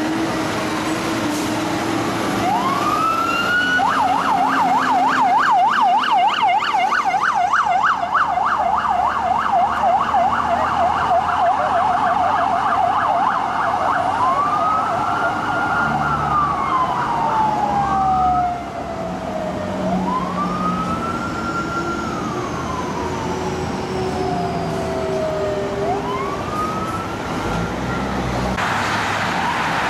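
Electronic sirens of Federal Protective Service Chevrolet Tahoe police SUVs running code 3: a wail climbs, switches about four seconds in to a fast yelp, then goes back about halfway through to a slow wail that rises and falls every four seconds or so. Vehicle engines rumble underneath.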